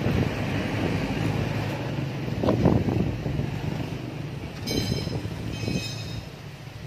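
Plastic front body panels of a Yamaha NMAX scooter being handled and pressed back into place, with a few knocks about halfway through and two short squeaks near the end, over a steady low hum.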